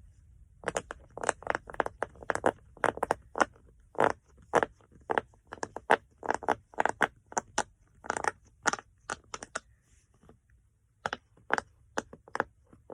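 Silicone bubbles of a jumbo pop-it fidget toy pressed one after another, each giving a short, sharp pop, two or three a second. There is a brief pause about ten seconds in.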